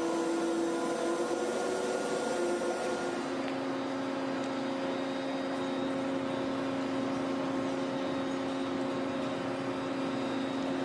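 A machine's motor running with a steady hum. About three seconds in, its pitch steps down slightly and a high hiss stops.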